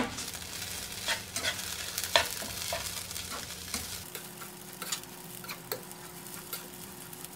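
Slotted spatula stirring and tossing quinoa and vegetables in a frying pan, with irregular scrapes and taps against the pan over a steady sizzle of the food frying.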